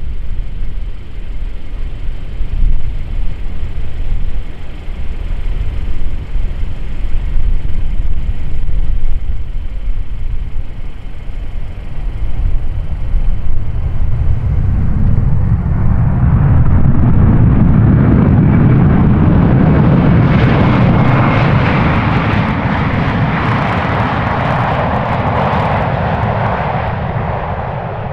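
Airbus A320-214 landing, its CFM56 jet engines heard as a low rumble that swells about fifteen seconds in to a loud, steady rush of jet noise as the airliner rolls out along the runway. The noise eases off near the end.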